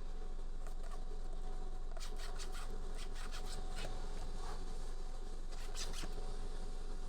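Short rubbing and scratching sounds of hands working on a steering wheel during restoration, coming in a few clusters, over a faint steady hum.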